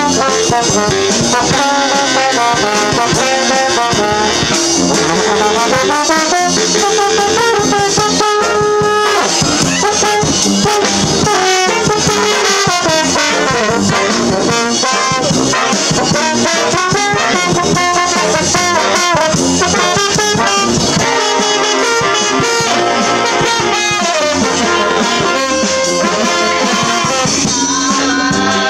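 A brass band playing live, with trombones and trumpets carrying the tune.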